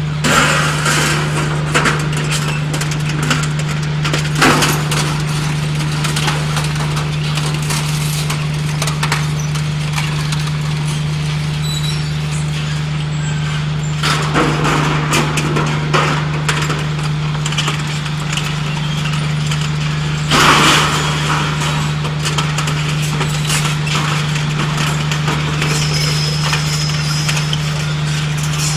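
Twin-shaft shredder running with a steady low drone while its cutters chew scrap, giving irregular bursts of crunching and clattering, the loudest about 20 seconds in.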